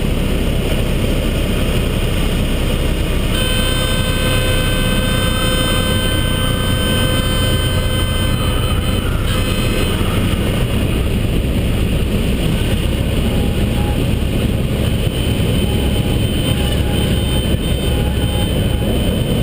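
Cessna 152 Aerobat heard from inside the cabin during a spin: the four-cylinder Lycoming engine and propeller drone steadily under loud air rush past the airframe. A steady high tone with overtones sounds over it for about six seconds, starting a few seconds in, then cuts off.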